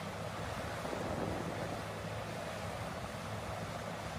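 Steady low rumble of a Caterpillar 6015B hydraulic excavator working, with wind noise on the microphone.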